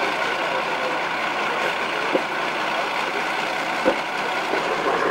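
Class 52 'Western' diesel-hydraulic locomotive D1013 with twin Maybach engines idling steadily while standing. Two short sharp knocks come about two and four seconds in.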